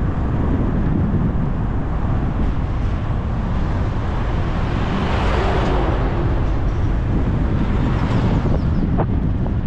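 Wind buffeting the microphone of a camera on a moving bicycle, a steady heavy rumble. A vehicle passes about halfway through, swelling and fading. There is a short knock near the end.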